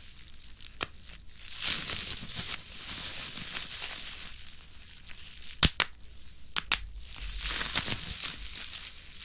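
Plastic bubble wrap squeezed and crinkled in the hands, with a few sharp pops as bubbles burst. The loudest pop comes a little past halfway, followed closely by two more.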